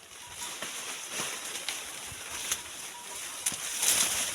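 Dry maize leaves and stalks rustling and crackling as they are handled during hand harvesting, with several sharp snaps or clicks and a louder rustle near the end.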